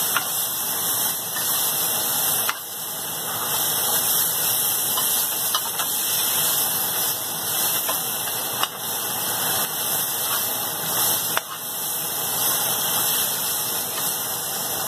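Chicken drumsticks and onions frying in an open pan, sizzling steadily, with a few light clicks from the stirring.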